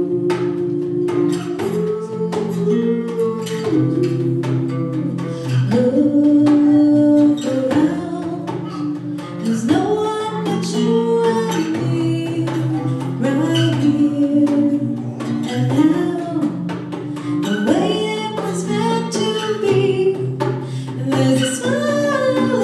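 Live acoustic music: a woman singing a melody over a steadily played acoustic guitar and a djembe struck by hand.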